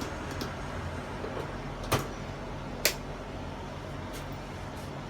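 Two sharp clicks about a second apart, with a few fainter ticks, over a steady low background hum: handling noise as objects are set down or moved.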